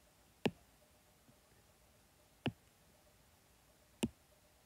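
Three sharp taps of a stylus on a tablet's glass screen, spread a second and a half to two seconds apart, over faint room tone.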